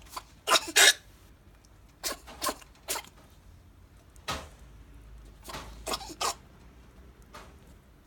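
A young rabbit sneezing again and again: about ten short, sharp sneezes in groups of two or three, the loudest about a second in. These are the sneezes of snuffles, a Pasteurella infection of the nose.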